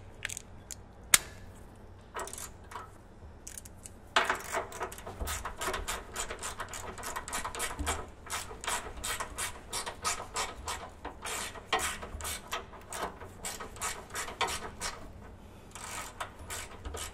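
Hand ratchet clicking in quick, repeated back-and-forth strokes while working a stubborn suspension bolt. It starts about four seconds in after a few scattered clicks and stops about a second before the end.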